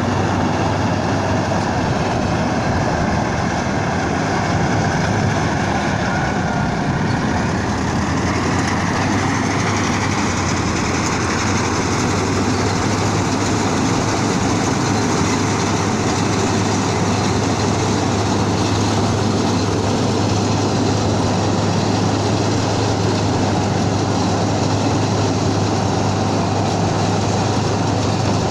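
Rice combine harvester running continuously, its heavy diesel engine and machinery giving a loud, steady drone with a strong low hum.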